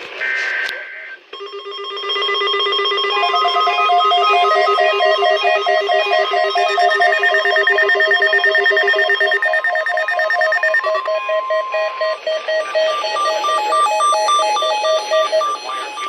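Several NOAA weather radios sounding their alert alarms at once for the Required Weekly Test: overlapping electronic beeping at different pitches. It starts with a brief high buzzy data burst, the SAME header, and a steady tone joins from about 3 s to 12 s.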